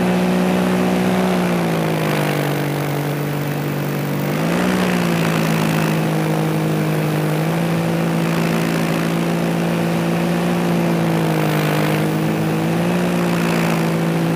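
Paramotor engine and propeller running steadily in flight. The engine note drops about a second and a half in, climbs back about four and a half seconds in, and dips briefly again near the end as the throttle is eased and reopened.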